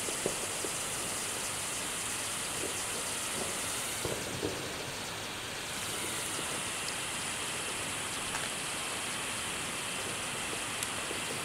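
Large red Bengal fire pot burning with a steady hiss, with a few short pops.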